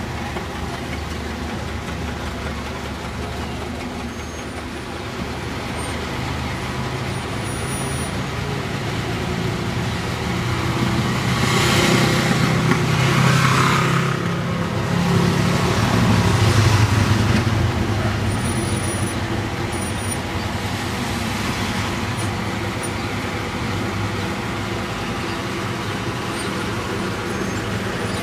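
A line of Alfa Romeo Spider convertibles driving slowly past one after another, engines running at low speed. Two cars passing close near the middle are the loudest, each swelling and fading.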